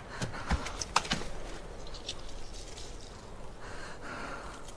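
A quiet TV drama soundtrack: faint background ambience, with a few soft clicks and knocks in the first second or so.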